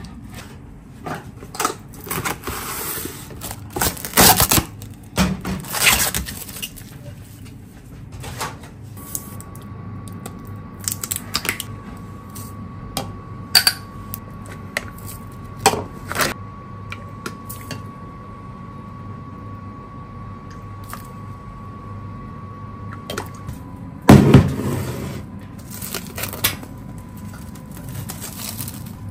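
Kitchen handling sounds: cut komatsuna leaves and glass bowl being handled, then a plastic measuring cup and spoon clinking as a seasoning sauce is mixed. Scattered clicks and knocks throughout, with a faint steady tone through the middle and a louder clatter about 24 seconds in.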